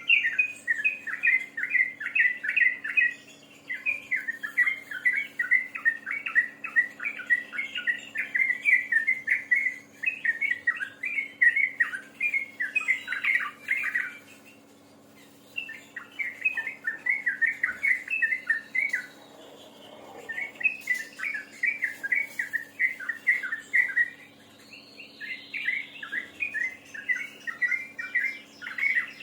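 A songbird singing continuously in long runs of rapid, chirping notes, with brief pauses of about a second between phrases.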